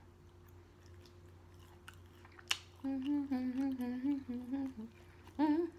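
A woman humming with her mouth closed while chewing steak. The hum wavers slightly and lasts about two seconds in the middle, with a short rising "mm" near the end. A sharp click comes just before the hum.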